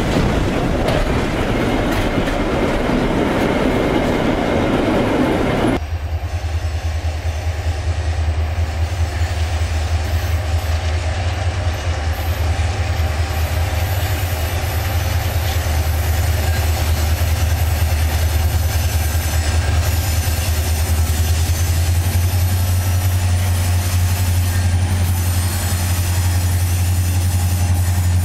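Diesel freight train passing close, a loud rush of wheel and rail noise; about six seconds in it gives way to the steady low drone of diesel locomotives working towards the listener at the head of a freight train.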